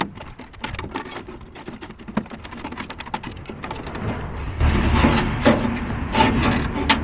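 Plastic fuel pipe and wires being pulled by hand through a hole in a van's floor: light clicking and rustling, turning into louder scraping and rubbing with a few knocks about halfway through.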